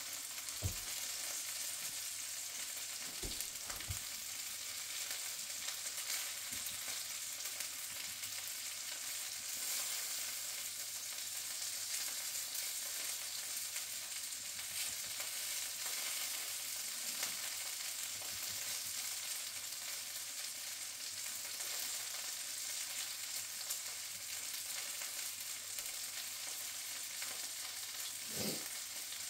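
Sausage links sizzling steadily in a skillet over a gas burner, with a constant hiss and fine crackling of fat. A few soft low thumps come about a second in, around three to four seconds in, and near the end.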